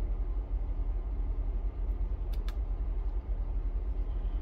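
Steady low-pitched hum, with two light clicks a little past two seconds in.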